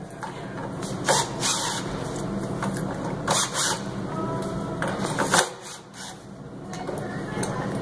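Cordless drill running in reverse, backing the screws out of a door hinge, with a few sharp clicks along the way. The motor stops for about a second around five and a half seconds in, then starts again.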